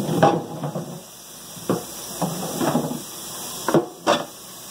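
Hot frying pan hissing and steaming as cold tap water runs onto it, with several knocks of the pan.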